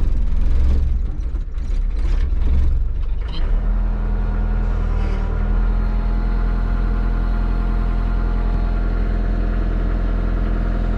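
Diesel engine of a Volvo EC55 mini excavator running; it is uneven for the first three and a half seconds, then settles into a steady idle.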